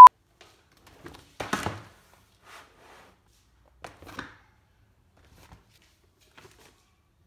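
A steady test-tone beep cuts off right at the start. Then large paper drawing pads are handled and set down on a case: a thump with paper rustling about one and a half seconds in, and smaller knocks and rustles around four seconds in.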